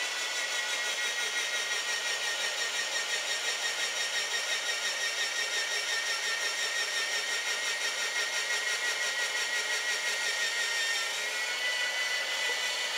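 A Presto Salad Shooter electric slicer-shredder running steadily with a high-pitched tone while carrots are pushed down its chute and shredded.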